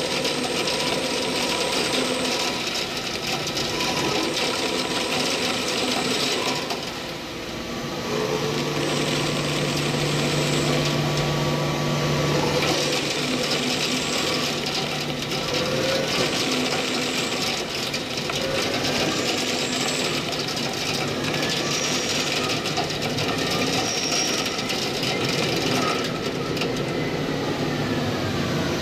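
CNC lathe running and turning a metal shaft: steady spindle and cutting noise with a few steady tones. Near the end some tones slowly rise and fall as the spindle speed changes.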